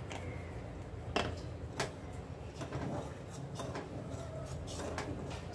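Steel spoon clinking and scraping against a stainless steel saucepan as milk is stirred on the stove: a few light clicks, the sharpest about a second in and just under two seconds in, over a steady low hum.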